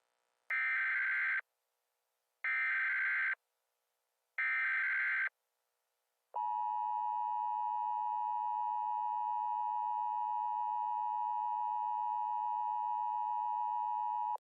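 Emergency Alert System signal: three one-second bursts of the screeching SAME data header about a second apart, then the steady two-tone EAS attention signal starting about six seconds in.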